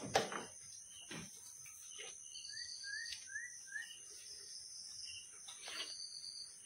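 Night insects trilling steadily at a high pitch, with repeated short chirps and a run of four quick rising chirps about two and a half seconds in. A few knocks, the sharpest just after the start.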